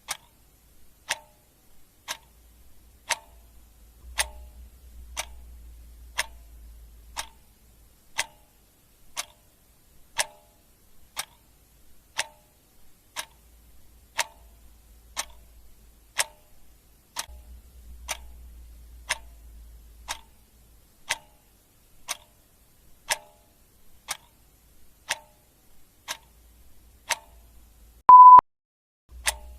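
Clock ticking sound effect, a sharp tick about once a second, steady. Near the end, a single short, loud beep cuts in.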